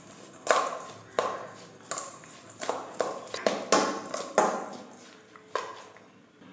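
Metal spoon knocking and scraping against a stainless steel bowl while chopped onions and green chillies are mixed. About nine sharp clinks come at an uneven pace, each ringing briefly.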